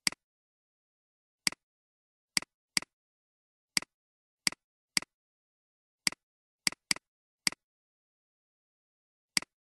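Computer mouse clicks: twelve sharp clicks at uneven spacing, some in quick pairs, each a press followed by a softer release.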